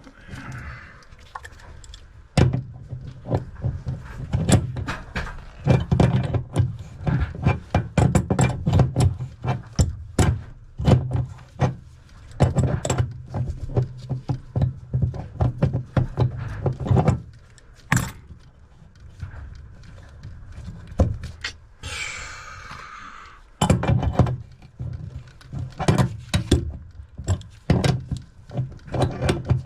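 Irregular clanks, knocks and rattles of hand tools on rusted, rigid metal sink supply lines and shut-off valves, coming in clusters with a lull about two-thirds of the way in and a short hissing rush just after it. A steady low hum runs underneath.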